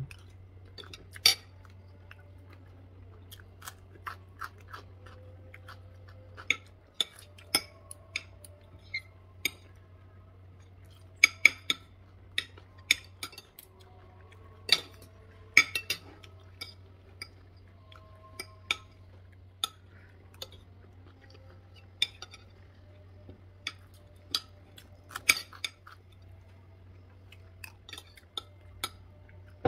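Metal fork and spoon clinking and scraping against a ceramic plate while eating, in irregular sharp clinks, some loud, over a steady low hum.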